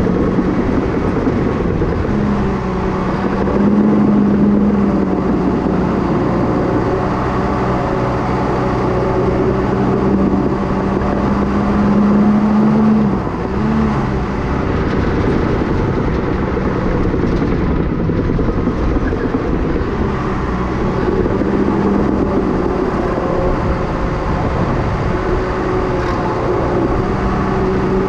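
Cat D5K dozer's four-cylinder C4.4 diesel engine running steadily under load while pushing dirt with the blade. Its note rises a little twice and dips briefly about halfway.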